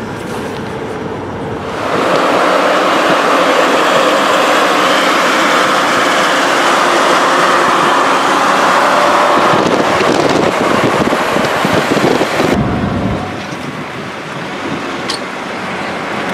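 Wind rushing over the microphone and road noise from a vehicle travelling at highway speed, heard from an open car window. The rushing gets much louder about two seconds in and changes abruptly twice near the end.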